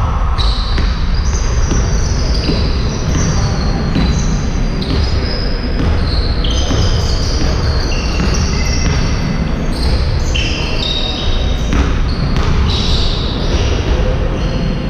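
Basketball game on an indoor court: the ball being dribbled and many short, high-pitched squeaks of players' sneakers on the hall floor, echoing in the large hall.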